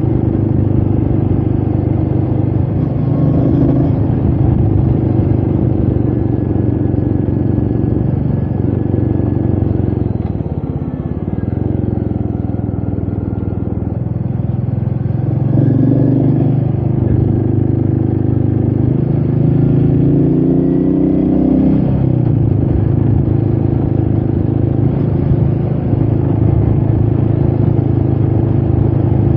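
Royal Enfield Meteor 350's single-cylinder engine running steadily while the bike is ridden. The engine note dips about ten seconds in. It climbs again about twenty seconds in, then drops back sharply.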